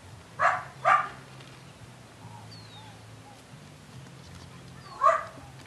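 A Belgian Malinois puppy making three short, sharp sounds: two in quick succession around half a second and one second in, and a third about five seconds in.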